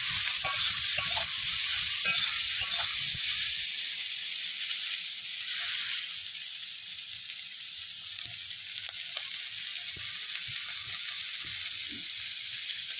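Brinjal and spice paste frying in hot oil in a pan, with a steady sizzle and a spatula stirring and scraping. Louder and busier for the first few seconds, then it settles to a quieter sizzle with occasional light knocks.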